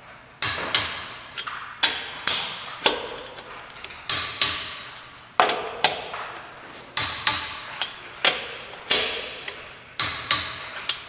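Click-type torque wrench clicking again and again as the wheel's lug nuts are rechecked at the set torque of 86 foot-pounds: sharp metallic clicks with a brief ring, irregular, about two a second.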